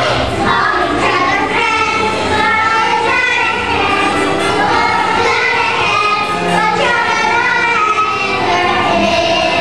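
A chorus of children singing together, continuously.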